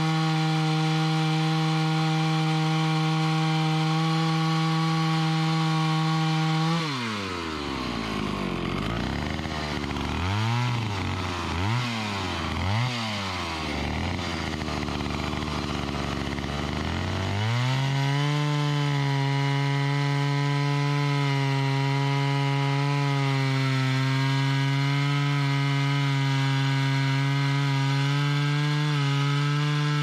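Two-stroke chainsaw running at full throttle as it cuts into a standing tree trunk. About seven seconds in it drops to idle, with three quick throttle blips. About ten seconds later it revs back up and cuts steadily again, its pitch wavering slightly under load.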